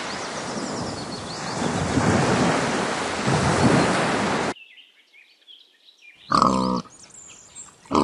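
Ocean surf rushing steadily, cut off abruptly about four and a half seconds in. After a quiet gap with faint high chirps comes one short, low animal call near the end.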